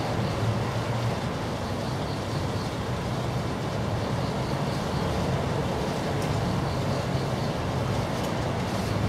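Steady outdoor background noise: a low, even rumble with hiss over it, and a faint high chirp repeating evenly throughout.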